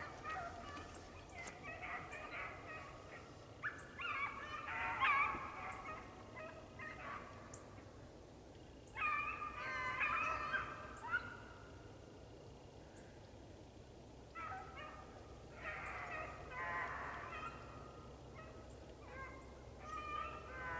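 A pack of beagles baying on a rabbit's trail, coming in bursts of overlapping calls with short lulls between.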